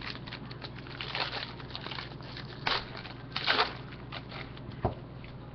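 Foil trading-card pack crinkling as it is handled and torn open, in a few short rustling bursts, with one sharp click near the end.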